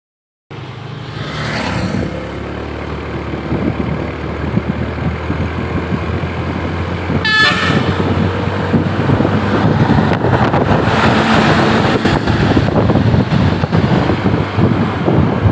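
Heavy road traffic passing close by, large buses among it: engine and tyre noise that builds steadily louder, with a brief sharp burst about seven seconds in.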